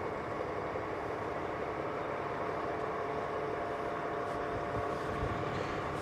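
Crane's engine running steadily at a low, even level, with a faint steady whine over the hum.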